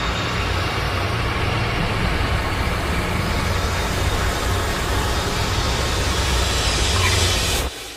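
A loud, steady rumbling drone with a low hum underneath, growing brighter and hissier towards the end and then cutting off suddenly just before the end.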